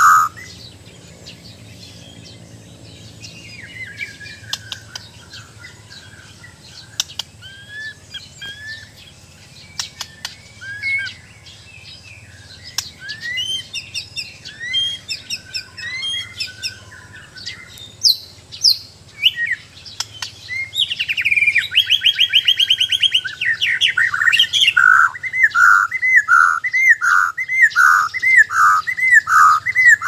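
White-crowned shama (Bornean murai batu) singing: soft, varied whistles and chirps at first, then a loud rapid trill about two-thirds of the way in, followed by a loud run of repeated swooping whistled notes, about two a second, near the end.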